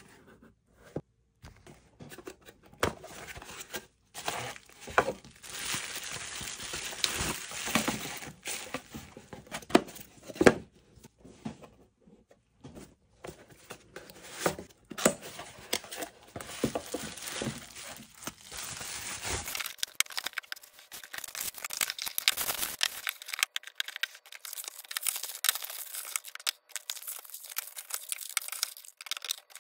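Cardboard product boxes being opened and kraft packing paper crinkled and torn as it is unwrapped, with irregular clicks and light knocks from the items being handled and set down.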